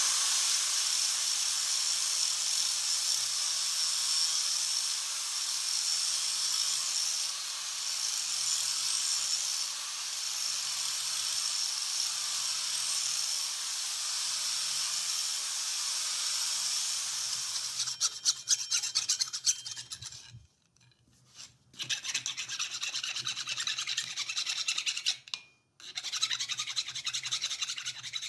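Angle grinder running against the edges and painted face of a cast steel anvil, grinding off the blue paint and rounding the edges: a steady high grinding hiss over the motor's hum. Later it turns rattly and choppy, broken twice by short gaps.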